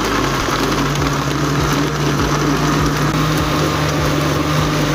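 Electric countertop blender running steadily, blending watermelon and milk into a milkshake: a loud, even whirr over a steady low motor hum.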